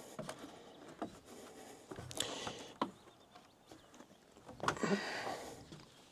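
Footsteps on the wooden stairs of an observation tower: a few scattered knocks on the timber, with clothing rustling against a clip-on microphone about two seconds in and again around five seconds.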